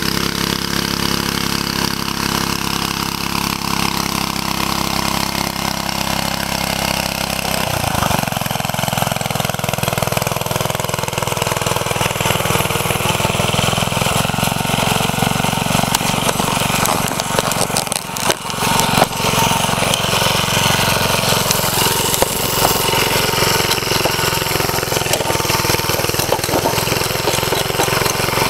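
Small engine of a 1949 Bready walk-behind tractor running steadily under load while it pulls a disc harrow. It comes close by about eight seconds in, and there is a brief dip with a few knocks a little past halfway.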